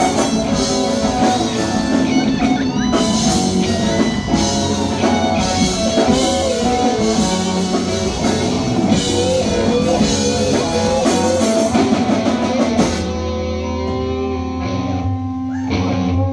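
Rock band playing live with electric guitar, bass and drum kit. About 13 seconds in, the drums and cymbals stop and sustained guitar and bass notes ring out as the song closes.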